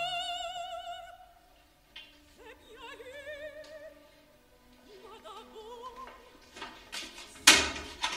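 Slow soundtrack music: a high, wordless opera-style singing voice holding long notes with strong vibrato. A sharp, loud clatter sounds near the end.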